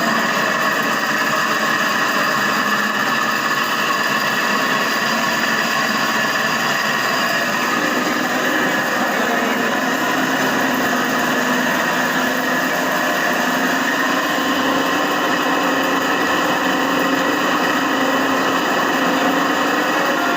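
Steady machine noise, running unchanged throughout, with a few constant tones over a broad hiss.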